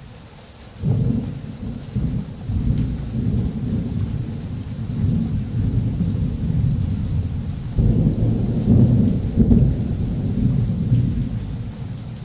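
Heavy rain hissing steadily, with a deep rumble that starts suddenly about a second in, keeps swelling and fading, and surges again near eight seconds.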